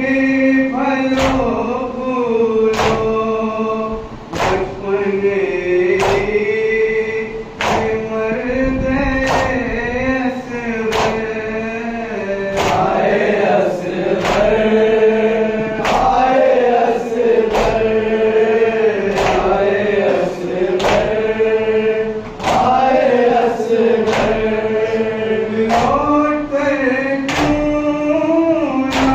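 Men's voices chanting an Urdu noha, a Muharram lament, in a slow, wavering melody. It is kept in time by sharp rhythmic chest-beating slaps (matam), a little over one a second.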